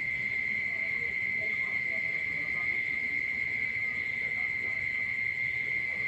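A steady, unbroken high-pitched insect trill after rain, with faint, scattered frog calls beneath it.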